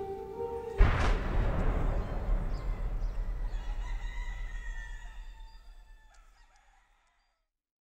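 Closing of an epic hybrid action background music track: held synth tones break off about a second in for one heavy cinematic impact hit, whose low rumble and ringing tail fade out to silence near the end.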